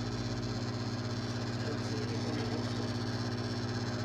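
GE sensor microwave oven running: a steady electrical hum with its fan going.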